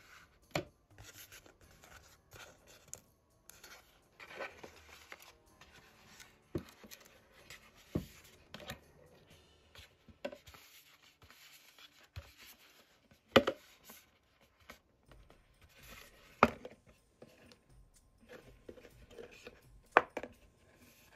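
Hard plastic Halloween pails being handled and turned over: soft rubbing and rustling with scattered sharp knocks of plastic, the loudest two about thirteen and twenty seconds in.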